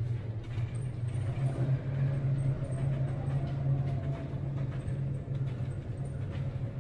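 Steady low droning hum and rumble aboard a tanker pitching through a storm sea, the ship's machinery running under a wash of wind and waves.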